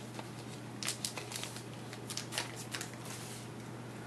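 Soft crinkling and light clicks of a freshly opened trading-card pack's wrapper and cards being handled, in a couple of small clusters, over a steady low hum.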